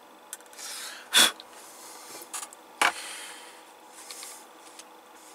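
Hand tools being handled and set down on a hard bench after soldering: a few sharp clicks and knocks, the loudest a little over a second in and another near three seconds, with a soft hiss in between.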